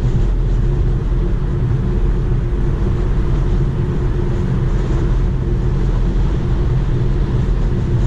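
Steady tyre and wind noise heard inside the cabin of a Tesla Model 3 cruising at about 72 mph on a highway in strong, gusty wind.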